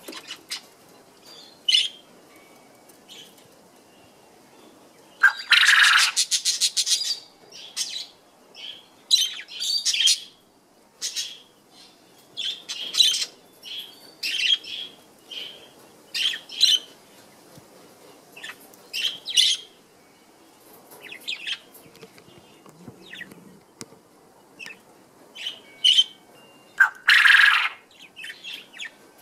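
Male Japanese quail calling for a mate: two loud calls made of rapid pulses, each a second or two long, one about five seconds in and one near the end. Short chirps come in between.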